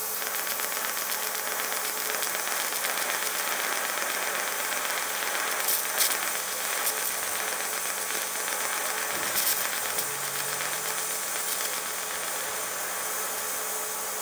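TIG welding arc laying a bead on a cast iron bracket with cast iron filler rod: a steady hiss, with a few sharp ticks around the middle.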